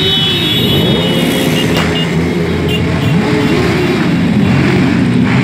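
A column of motorcycles riding past one after another, engines revving up and down as each goes by close.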